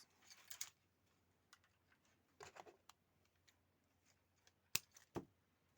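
Faint rustles and light clicks of hands working with wire and small tools, with two sharp clicks near the end.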